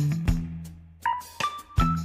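Background music with a steady beat that drops out briefly about halfway through, then comes back with a few held melody notes.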